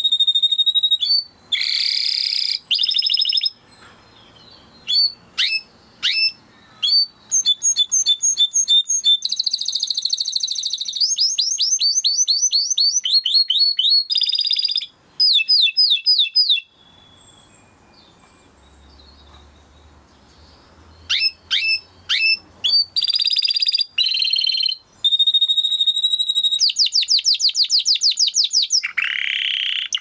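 Yellow domestic canary singing: fast trills of rapidly repeated notes alternating with high whistled tones, in phrases with a pause of a few seconds just past the middle.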